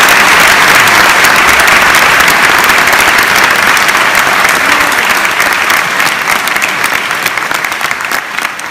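Audience applauding, a dense clatter of clapping that slowly fades out near the end.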